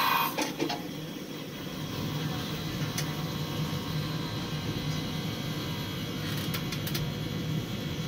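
Steady low hum inside a tower crane cab, getting slightly louder about a second and a half in, with a few faint clicks.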